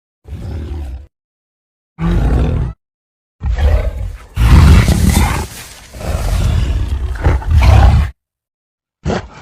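Thor-Kong, a giant ape monster, growling: separate sound-effect clips with dead silence between them. Two short deep growls come first, then a long rumbling growl of about four and a half seconds that rises and falls, and another begins near the end.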